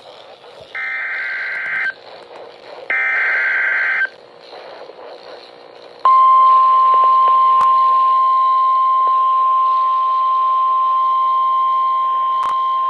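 Emergency Alert System signal on NOAA Weather Radio: the last two of the three data bursts of the SAME header, each about a second long with a hiss of radio noise between them, then after a pause the steady 1050 Hz warning alarm tone starts about six seconds in and holds. This alarm tone marks that a warning is being issued, here a flash flood warning.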